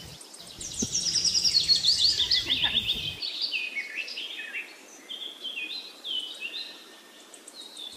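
Small birds chirping in quick runs of short, high calls, many of them stepping down in pitch. The calls are busiest and loudest in the first three seconds, then come more sparsely.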